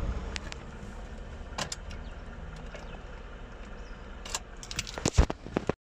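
A 2003 Mitsubishi Lancer's warm 2.0-litre four-cylinder engine switched off at the ignition key, its hum dropping away in the first half second. Then a few sharp clicks and a jingle of keys as the key is turned and handled, with a clatter of knocks near the end.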